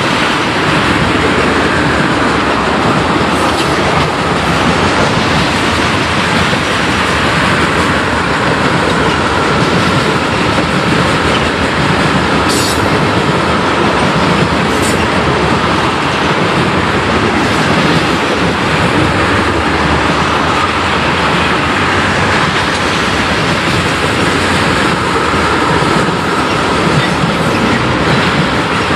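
Loaded tank cars of a freight train rolling past close by: a loud, steady rumble and clatter of steel wheels on the rails, with two brief high squeaks near the middle.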